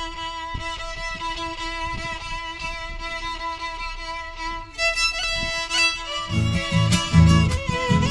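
Folk music with a violin in front: the violin holds one long note, then plays a moving melody, and about six seconds in a low accompaniment with a steady beat joins.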